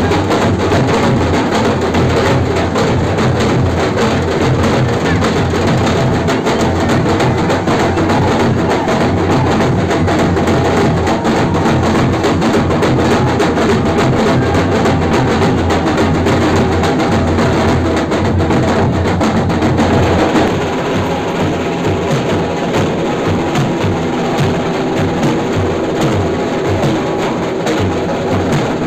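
Loud, fast, dense drumming with music playing over it; the level drops slightly about two-thirds of the way through.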